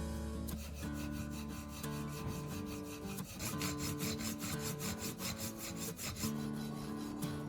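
Metal being filed or rubbed by hand in quick, even back-and-forth strokes, as when a drill bit is sharpened against an abrasive. Background guitar music plays underneath.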